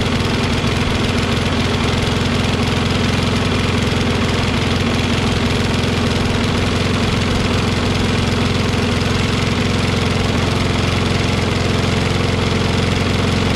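Kohler XT675 single-cylinder engine on a Toro push mower running steadily through a cold start. The automatic choke flap is slow to open, which the owner blames for the engine taking a while to run well.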